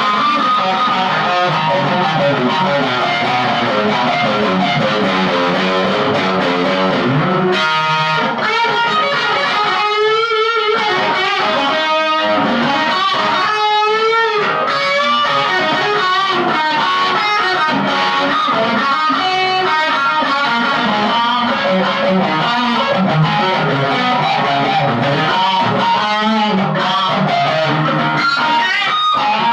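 Gibson Les Paul Studio electric guitar played through a Marshall Jackhammer JH1 overdrive/distortion pedal into a small Marshall MG15CD practice amp: continuous distorted riffs and lead lines, with wide vibrato on held notes about ten and fourteen seconds in.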